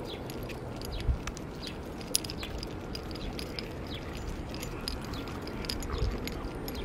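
Outdoor ambience on a walk: a steady low background noise with many short high chirps scattered throughout, and two brief knocks about one and two seconds in.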